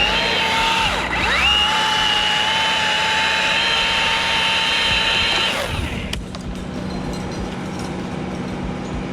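Milwaukee battery-powered electric chainsaw running at full speed with a high whine, its pitch dipping for a moment about a second in, then released and spinning down around six seconds in. A quieter steady low hum continues after it.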